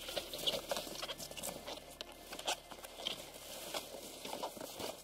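Folding egg-crate closed-cell foam sleeping pad being unfolded and spread out on a snow floor: a continuous run of irregular rustling, crackling and scuffing.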